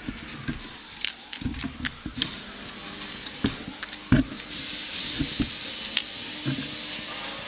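Electric train passing close through a station: irregular knocks and clunks of its wheels over rail joints and points, with a steady hiss building from about halfway.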